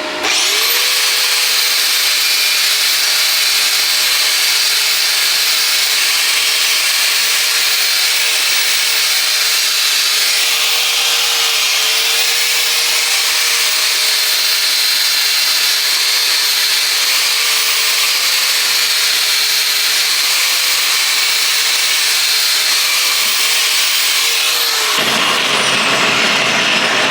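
Angle grinder starting up and running on steel, a steady whine over a loud hiss, for about 25 seconds, then switched off and spinning down.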